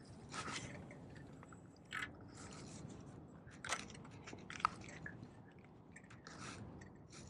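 A spinning rod swishing through a cast, then faint handling noise from the Daiwa Luvias spinning reel: a few sharp clicks and soft rustles as the line is taken up.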